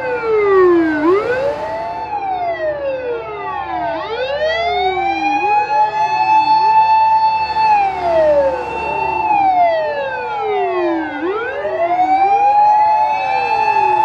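Sirens of several Japanese fire engines wailing together, out of step with one another. Each siren falls steadily in pitch, then swoops back up and holds high for a moment, once every few seconds.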